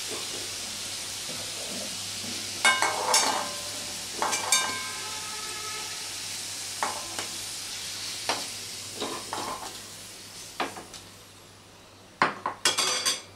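Hot oil sizzling in a metal kadai as a metal spatula scrapes and clinks against the pan, lifting out fried potato pieces; several clinks ring briefly. The sizzle fades toward the end, and a last quick run of scrapes and knocks comes near the end.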